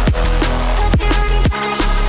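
Fast electronic drum-and-bass music with a heavy, sustained bass line and punchy kick drums.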